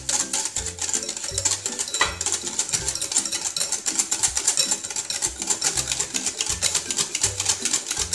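Wire whisk beating a runny egg, oil and sugar batter in a glass bowl: a fast, steady run of clicks as the wires strike the glass, whisking until the sugar dissolves. Background music with a repeating bass line plays underneath.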